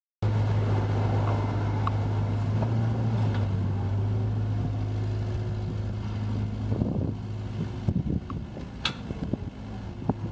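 Kubota U-40-3 mini excavator's diesel engine running steadily under hydraulic work as the machine swings and moves its boom. From about seven seconds in come scattered clanks and knocks.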